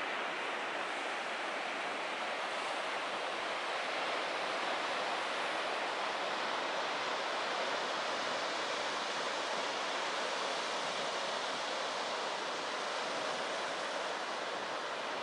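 Steady rushing noise of sea surf breaking on a sandy beach.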